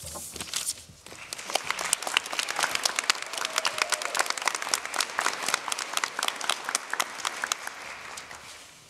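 Audience applauding; the clapping is dense and thins out near the end.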